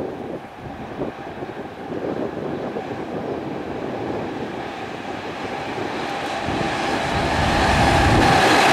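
JR East E231-series electric train approaching and passing close by. Its running noise grows steadily louder and reaches full level as the cars go by near the end. A steady whine joins in about six seconds in.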